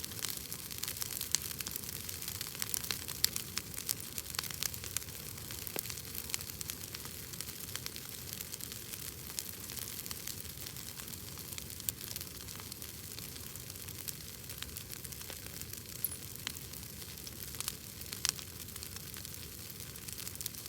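Bonfire burning, its wood crackling in scattered sharp snaps at irregular intervals over a steady hiss.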